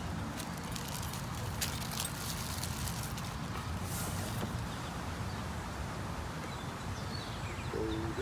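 A few faint clicks and taps of small screws and plastic parts being handled during assembly, over a steady low background rumble.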